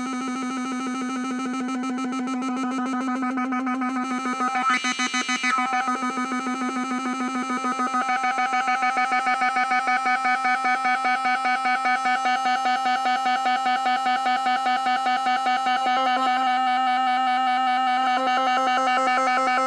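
Homemade breadboard Weird Sound Generator synth, played through a small mini amp: a steady electronic drone rich in overtones. It takes on a rapid, even pulsing from about four seconds in, with a brief brighter burst around five seconds.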